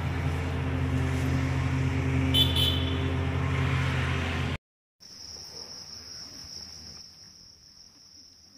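A steady low motor hum with a brief high toot about two and a half seconds in. It cuts off about four and a half seconds in, and after a moment's break a steady high-pitched insect chorus drones on.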